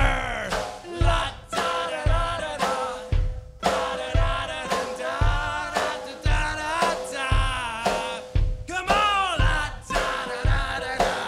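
Live folk-band music with a steady low beat, about one stroke every three-quarters of a second, under a wavering melodic line.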